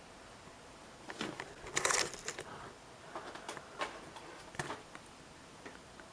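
A scattered run of light clicks with a brief rustle about two seconds in, like small objects or a mouse and keyboard being handled.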